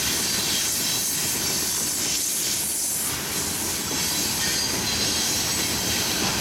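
Coal hopper cars of a freight train rolling past with a steady rumble and a high hiss and squeal from the wheels on the rails, while CSX diesel locomotives move slowly alongside.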